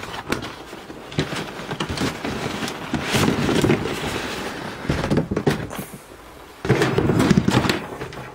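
Cardboard packaging being slid off a hard plastic tool case: scraping and rustling with scattered clicks and knocks, and two longer scrapes, one about three seconds in and one near the end.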